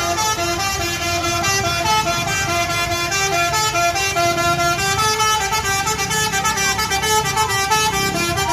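A bus's telolet basuri musical horn plays a tune as a quick run of short notes changing pitch several times a second. A low engine rumble runs underneath.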